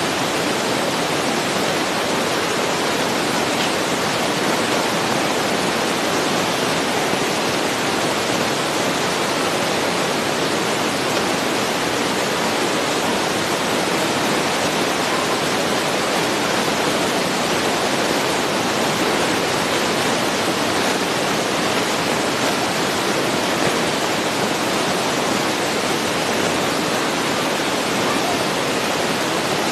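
Steady, even hiss that does not change, with no distinct events in it.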